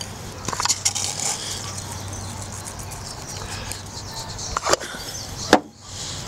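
Pinches of salt sprinkled over diced onion and tomato in a bowl, a faint rustle in the first second or so, then a few sharp clicks and knocks of utensils on the plastic cutting board near the end, the last the loudest, over a low steady hum.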